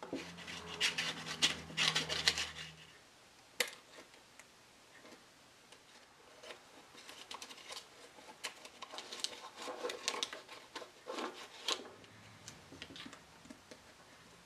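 Metal spatula blades scraping, clicking and tapping against a veneered wooden tabletop as loose veneer is pried up for gluing, in two spells of short scratchy strokes.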